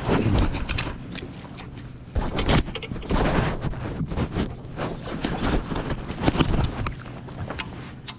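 Clothing rustling against a body-worn microphone, with irregular knocks and scrapes of handling as an angler moves about a boat's carpeted deck and picks up a rod. A faint steady hum runs underneath, with some wind buffeting on the microphone.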